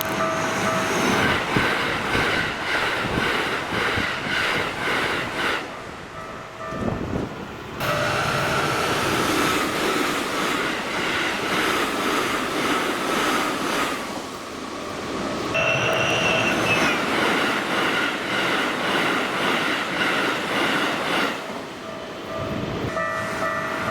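Keikyu trains passing through a level crossing at high speed, wheels clattering over the rail joints, with the crossing's alarm bells ringing over them. The sound changes abruptly a few times as one pass gives way to the next.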